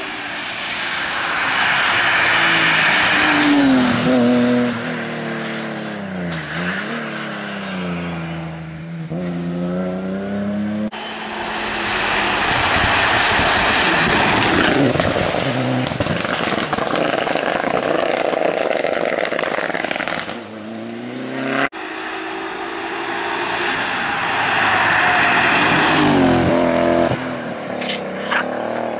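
Rally cars at speed on a tarmac stage, passing one after another: each engine revs hard, its pitch falling and climbing sharply through gear changes as it brakes and accelerates past. The sound breaks off abruptly twice, at about 11 and 22 seconds, and another car's pass begins.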